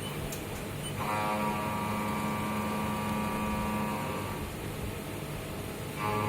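Tool-grinding machine running with a steady mechanical hum. A whine of several tones comes in about a second in, fades out around four seconds, and starts again near the end.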